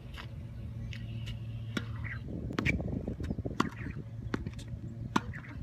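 Tennis ball being hit and bouncing during solo practice: a dozen or so sharp, irregular knocks over a steady low hum.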